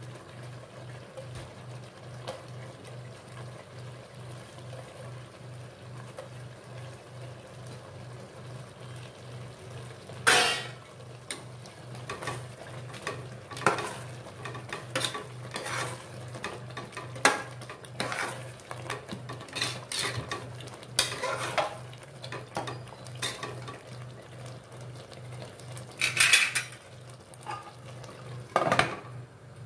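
A steel ladle stirring masala in an aluminium pressure-cooker pot, scraping and knocking against the metal. The knocks are irregular and start about a third of the way in, with a few sharp clanks near the end. A low steady hum sits underneath, and the first part is quieter.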